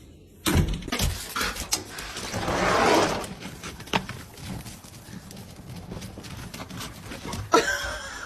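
A dog making noises: a breathy sound that swells to its loudest about three seconds in, a couple of knocks, and a short pitched vocal sound near the end.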